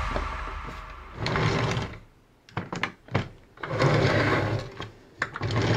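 Hello Carbot Samba Drill Burst plastic transforming toy being handled and moved, its parts clicking and knocking in a few short bursts with quiet gaps. Background music fades out at the start.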